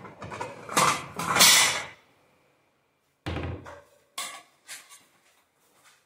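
Rustling and knocking right at the microphone for about two seconds, then after a pause a dull thump and a few light clicks of metal kitchen tongs.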